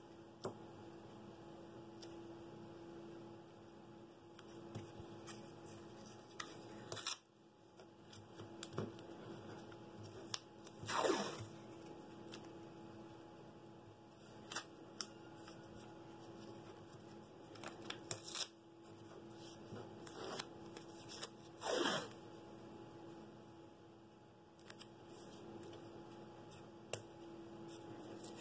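Blue painter's tape being pulled off the roll in a few short rips and smoothed down by hand onto a wooden block, with small rustles and taps of handling between; the loudest rips come about a third and three quarters of the way through.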